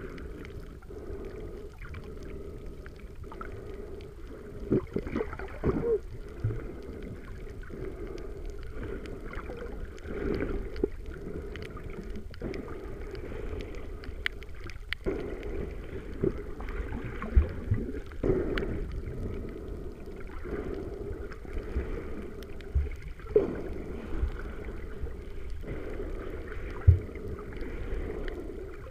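Muffled underwater sound through a waterproof camera housing: a steady low rush of moving water that swells every few seconds, with scattered sharp clicks and knocks.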